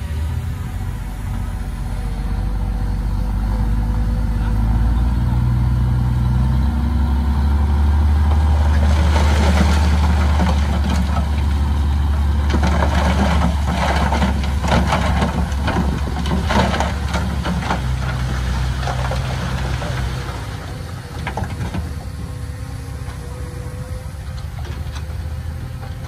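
Komatsu bulldozer's diesel engine working under load, growing louder over the first several seconds and easing off near the end. From about nine seconds in, for some twelve seconds, a dense clattering and crunching of stone sounds over the engine.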